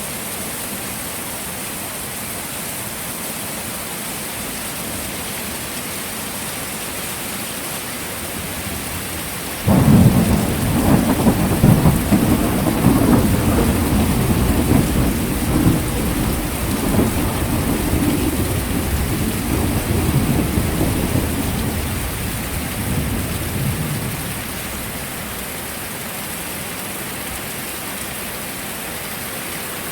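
Heavy rain falling steadily, with a long thunder rumble that breaks in suddenly about a third of the way through, rolls on loudly for several seconds and fades away over about fourteen seconds.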